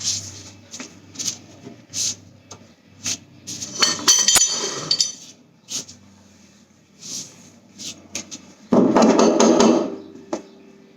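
Tools knocking and clinking on metal car parts: a run of sharp taps, a rattling clatter about four seconds in, and a harsh, louder one-second burst near the end.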